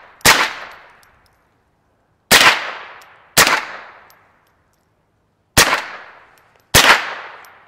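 Five single shots from a .22-caliber Smith & Wesson M&P15 rifle, spaced one to two seconds apart, each sharp crack trailing off over about a second.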